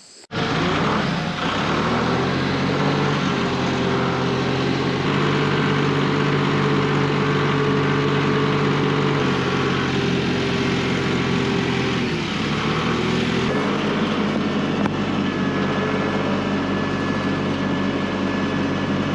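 Massey Ferguson tractor engine running steadily under way, its speed shifting a few times, about five seconds in, about nine seconds in, and with a dip a little past twelve seconds.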